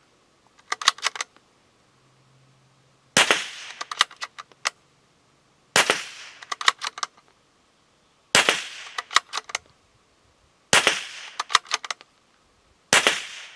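Springfield Armory Model 2020 Rimfire bolt-action .22 LR rifle being worked and fired. A few bolt clicks come about a second in, then five sharp shots follow about two and a half seconds apart, each shot followed by the rattle of the bolt being cycled.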